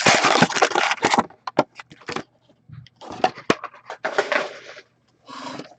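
Packaging of a hockey card box being torn open and handled: crinkling, tearing wrapper noise with scattered clicks and taps, in several bursts.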